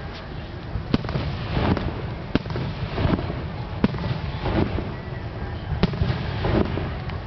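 Aerial firework shells bursting in a rapid starmine barrage: sharp cracks about once a second over a continuous low rumble of launches and explosions.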